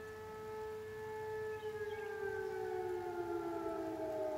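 Sterling M-10 8/16-port fire siren sounding from a distance, echoing off the opposite hill: a steady two-tone wail that begins to wind down and fall in pitch about a second and a half in.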